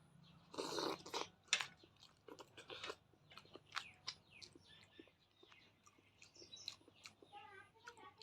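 Close-miked eating: chewing and crunching with wet mouth clicks, and a louder noisy burst of biting or slurping about a second in.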